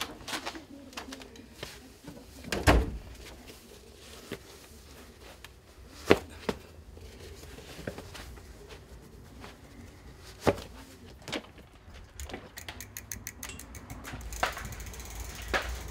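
Footsteps and the shuffle of canvas sneakers being pulled on and tied, with scattered knocks and thumps, the sharpest about six seconds in. A quick run of small clicks comes near the end.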